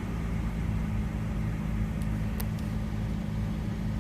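Chevy Avalanche pickup's engine idling steadily with a low hum, and a couple of faint clicks about two seconds in.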